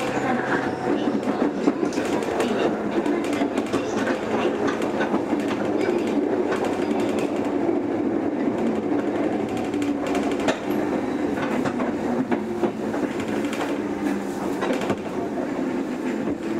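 JR 103-series electric train running, heard from inside the car: a steady rumble of wheels and motors with scattered clacks of the wheels over the track.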